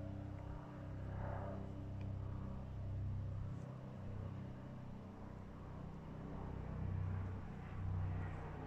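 A low, steady rumbling hum that swells and eases every second or two, with a few faint clicks.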